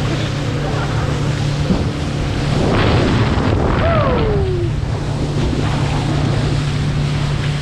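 Fishing boat's motor running steadily under way, with wind buffeting the microphone and water rushing past the hull. About four seconds in, a short falling tone glides down over it.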